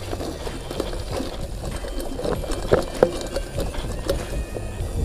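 Mountain bike rattling and knocking as it rolls over a bumpy dirt and grass trail, with two sharper knocks about three seconds in. Wind rumbles on the microphone underneath.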